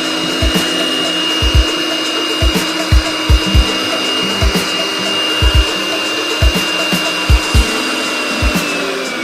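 Restored Makita air blower running steadily with a high motor whine that winds down near the end. Background music with a steady beat plays alongside.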